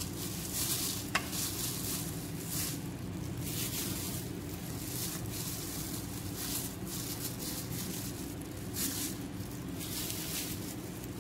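A hand in a plastic glove turning fish pieces through thick gram-flour batter in a plastic bowl: wet squishing of the batter and crinkling of the glove in irregular short bursts, over a steady low hum.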